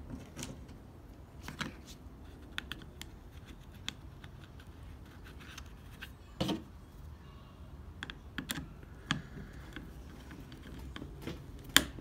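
Scattered small clicks, ticks and scrapes of a plastic-housed car door latch mechanism being handled and lined up for its mounting screw, with a duller knock about halfway and a sharp click near the end.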